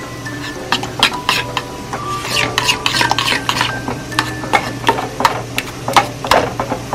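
A metal spoon stirring a thick cheese cream sauce in a stainless steel saucepan, with quick repeated scrapes and clinks against the pan's sides and bottom starting about a second in.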